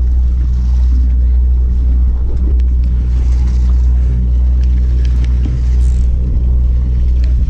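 Steady low drone of a fishing boat's engine, heard from the deck.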